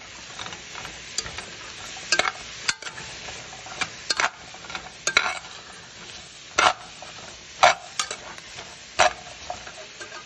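Sliced carrots, yellow squash and zucchini sizzling in oil in a pot while a metal spoon stirs them, the spoon scraping and knocking against the pot every second or so.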